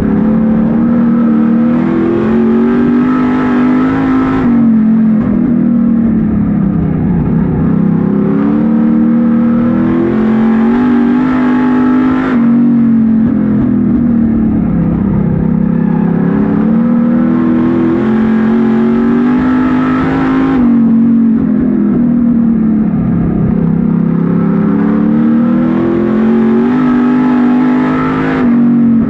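Street stock race car's engine at racing speed, heard from inside the cockpit: the revs climb along each straight and drop sharply as the driver lifts for each turn, four times, about every eight seconds.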